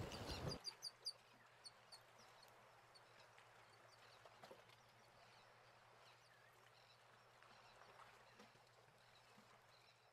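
Wind and surf noise for the first half second, cut off suddenly. Then near silence, with a few faint high chirps about a second in and a low steady hum.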